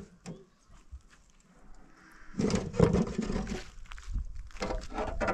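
Stones being loaded into a steel wheelbarrow, clattering and clanking against the metal tray. A loud cluster of knocks comes about two seconds in, and another near the end, each leaving a brief metallic ring.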